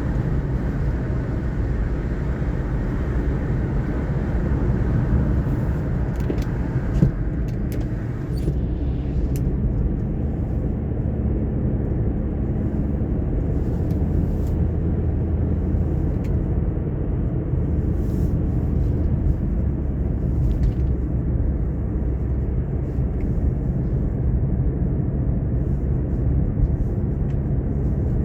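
A car driving: a steady low rumble of engine and tyres, with a few faint light clicks. A higher hiss in the road noise drops away about nine seconds in.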